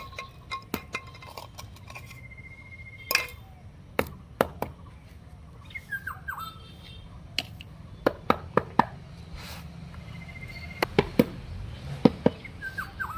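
Scattered sharp clicks and taps of small hard objects, a dozen or so with uneven gaps, along with a couple of short, high, falling squeaky chirps about six seconds in and near the end.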